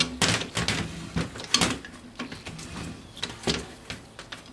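Irregular metal clicks and clanks as large plumber's pliers grip and turn the freed threaded end cap of a forklift hydraulic power steering cylinder to unscrew it. The louder knocks come near the start, about a second and a half in, and about three and a half seconds in.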